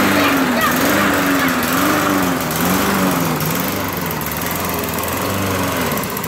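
Walk-behind rotary lawn mower's small engine running as it is pushed through snow, its pitch wavering up and down under the load. Near the end it dies down and stalls, the snow being too thick for it.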